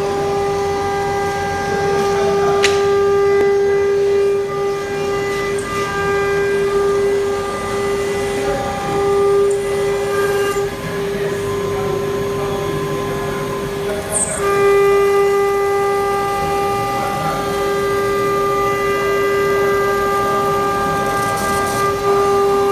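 CNC router spindle whining at a steady high pitch as it cuts aluminium composite panel, with a hiss of cutting beneath. The upper part of the whine fades from about eleven seconds in and comes back strongly about fourteen seconds in.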